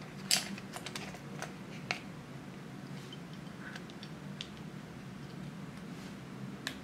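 Scattered plastic clicks and taps from handling a small rugged mobile phone, with its keys pressed and its battery pack pushed into place. A cluster of sharper clicks comes in the first two seconds, then fainter ones, and one more near the end.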